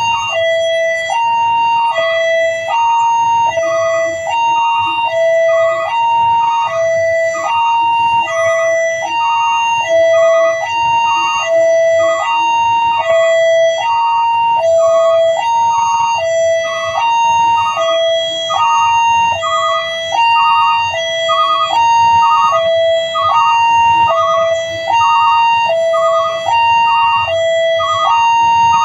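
Electronic railway level-crossing warning alarm sounding, a high and a low chime taking turns steadily, about one high and one low every 1.2 seconds.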